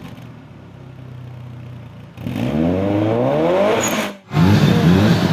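Turbocharged car engine: low and steady at first, then about two seconds in it revs up, rising in pitch under acceleration. A short break follows just after four seconds, and then it comes back loud and steady.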